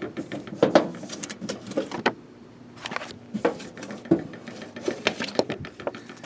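Irregular clicks, knocks and light rattling from keys and a mailbox as the mail is taken out.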